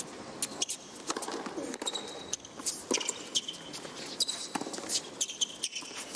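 Tennis rally on a hard court: sharp pops of racket strikes and ball bounces, about one every second, with a few short sneaker squeaks on the court surface in the middle.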